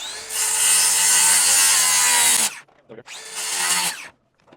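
Reciprocating saw (Sawzall) cutting through a wooden truss tail. It winds up with a rising whine, runs loud for about two seconds, stops, then runs again briefly near the end.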